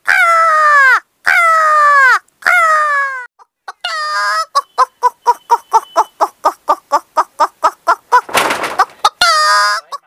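A woman imitating birds with her voice: four loud cawing calls like a crow's, each sliding down in pitch, then a quick run of hen-like clucks at about four a second, a breathy hiss, and one more call near the end.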